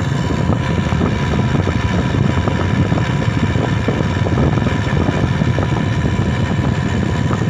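A motor running steadily, with a loud low rumble and no change in speed.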